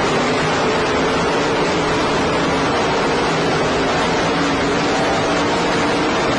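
Race-car engines running hard in a pack, heard as a steady, loud, smeared roar of noise with faint wavering engine pitches underneath, through a poor-quality recording.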